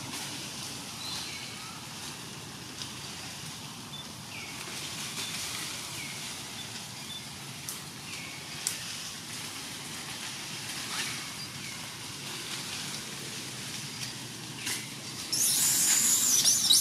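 Forest ambience with a steady background hiss, short chirping calls every second or two and a few sharp snaps. A loud, shrill, high-pitched sound starts near the end.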